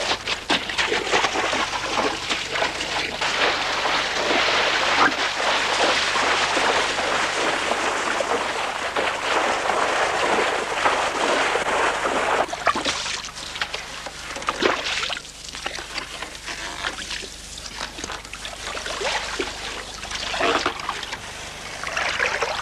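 Water splashing and sloshing: a dense, continuous splashing for about the first half, then broken into separate, irregular splashes.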